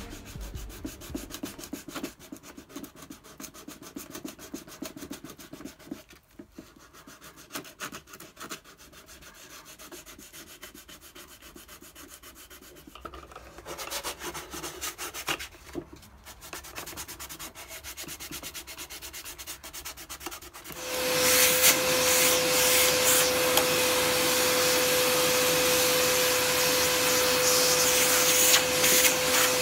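Sandpaper rubbed by hand over a wooden chest in quick, uneven strokes. About two-thirds of the way through, a shop vacuum starts and drowns it out, running steadily with a steady whine.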